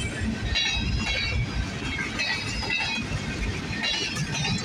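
Freight train boxcars rolling past at close range: a steady rumble of wheels on the rails, with brief high-pitched metallic squeals coming and going several times.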